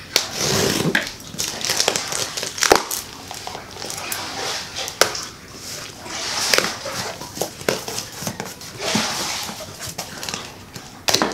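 Plastic packaging and clothes rustling and crinkling as a clothing order is unwrapped by hand, coming and going with a few sharp crackles.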